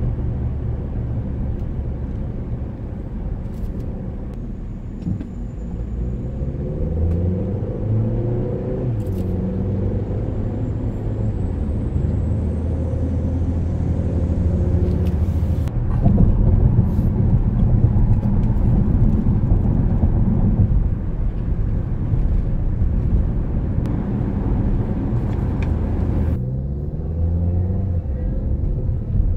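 Car engine and tyre rumble heard from inside the cabin while driving, the engine note shifting in pitch as the car speeds up and settles. The sound changes abruptly near the end.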